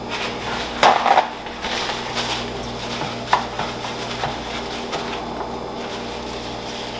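Glass baking dish knocking and clattering on the counter as it is handled and wiped out with a paper towel: a quick pair of knocks about a second in, the loudest, another sharp knock near the middle, and a few light taps with soft rubbing between.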